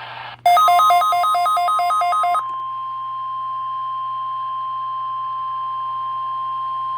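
NOAA Weather Radio receiver sounding an Emergency Alert System weekly test. First comes a burst of about two seconds of rapidly warbling data tones, the SAME alert header. Then a steady single-pitch alert tone starts about two and a half seconds in and holds.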